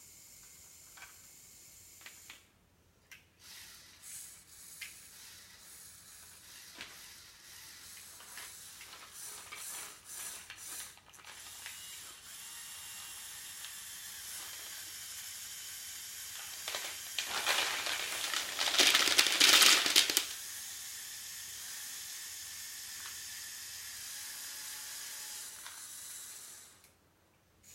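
Plastic gears and mechanisms of a Lego Technic excavator working. Scattered clicks at first, then a steady rasping mechanical noise that gets much louder for about three seconds in the middle and stops near the end.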